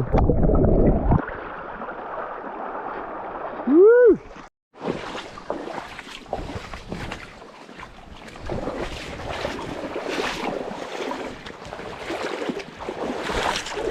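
Fast river water rushing and splashing close to the microphone, with wind buffeting the microphone in a loud low rumble during the first second. About four seconds in there is a short whoop, and the sound cuts out for a moment just after it.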